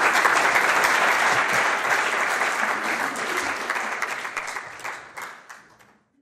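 Audience applauding, gradually fading away and stopping about six seconds in.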